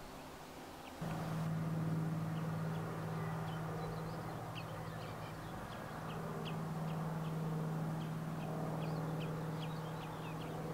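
Birds calling with many short, high chirps in an irregular series over a steady low hum. The sound changes abruptly about a second in, when the hum and chirps begin.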